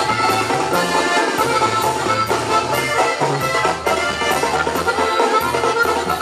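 Mexican banda music played loud for dancing, with a steady beat of about two strokes a second and a low bass line moving between notes under the melody.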